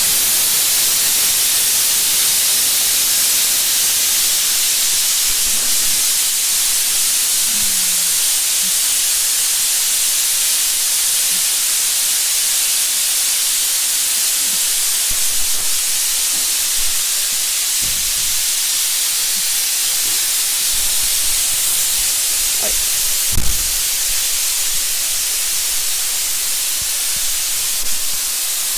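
Loud, steady hiss, like escaping air or spray, with one short knock about 23 seconds in.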